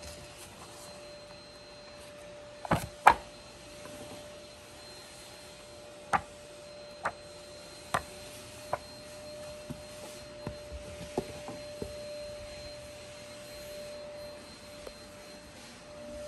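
A hardback book being handled and its pages turned: a series of sharp paper snaps and taps, the two loudest about three seconds in, over a steady faint tone.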